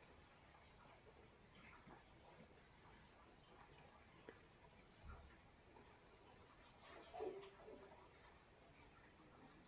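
Crickets chirping steadily: a continuous high trill with a fine, even pulsing.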